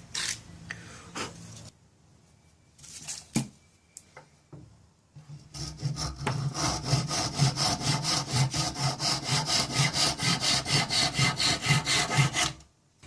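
Hand sanding a mahogany peg with a sanding disc: a few rubbing strokes, a pause of about three seconds with a couple of light knocks, then fast, even back-and-forth strokes, about five a second, that stop just before the end.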